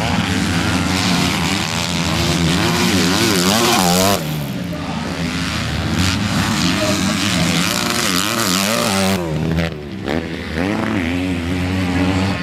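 Dirt bike engines revving on a motocross track, the pitch rising and falling quickly as the throttle is worked through turns and bumps. The sound breaks off and changes abruptly about four seconds in and again about nine seconds in.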